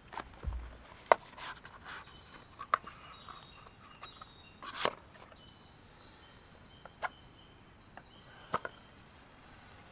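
A handful of sharp clicks and knocks from camp gear being handled as leather gloves are pulled on and a matchbox is picked up, with birds singing faintly in the background.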